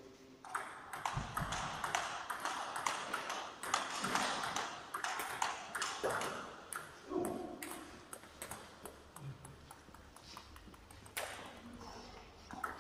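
Table tennis rally: the celluloid/plastic ball clicking rapidly off the bats and the tabletop for several seconds, then stopping about seven and a half seconds in. A new run of ball clicks starts near the end.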